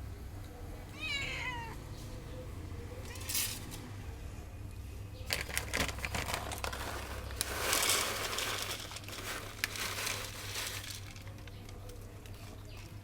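A domestic cat meows once, briefly, about a second in. From about five seconds in come several seconds of clicking and rustling noise.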